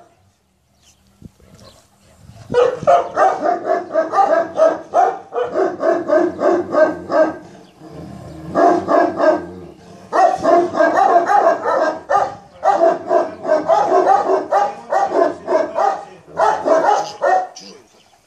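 Central Asian Shepherd Dog barking in rapid, repeated runs of deep barks. It starts about two and a half seconds in, breaks briefly twice, and stops just before the end.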